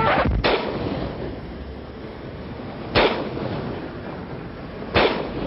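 Revolver shots: one near the start, then single sharp shots about three and five seconds in, with a steady background hiss between them.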